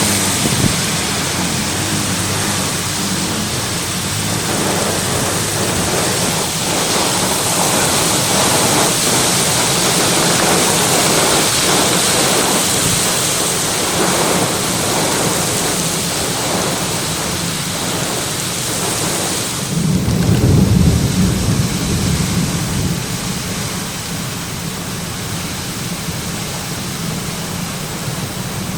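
Severe thunderstorm with heavy rain pouring and strong wind. A deep rumble swells about two-thirds of the way through and is the loudest moment, then the downpour eases slightly near the end.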